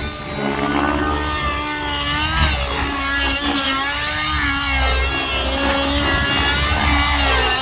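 Nitro RC helicopter's O.S. 55 HZ two-stroke glow engine with a tuned pipe running at flying speed during aerobatics. Its whine rises and falls in pitch as the helicopter manoeuvres and the load changes.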